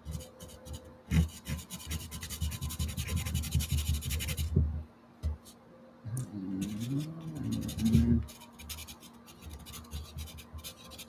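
Pastel pencil scratching across gesso-coated cold-press watercolour paper in rapid, close strokes. The strokes stop for a moment near the middle, then resume more lightly. A brief low hum sounds about two-thirds of the way through.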